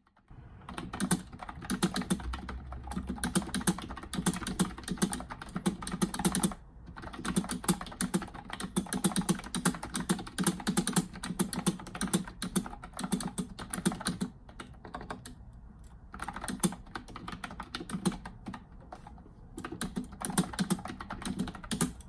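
Typing on an iStar typewriter-style wireless keyboard: a quick run of click-clack keystrokes with a really noisy space bar, pausing briefly a few times.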